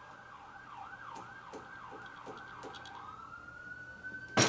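An emergency-vehicle siren: a steady tone that switches to a fast yelp of about three sweeps a second, then back to a slowly rising steady wail. A sharp click sounds near the end.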